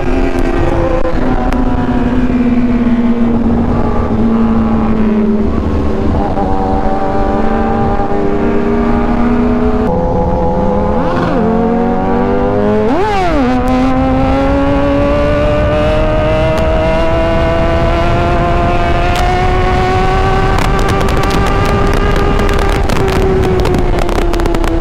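Kawasaki Ninja ZX-10R inline-four engine heard from the rider's seat while riding at speed. Its pitch holds fairly steady, swoops quickly up and back down a couple of times around the middle, then climbs slowly as the bike pulls in gear and eases off near the end. Wind rushes over the microphone throughout.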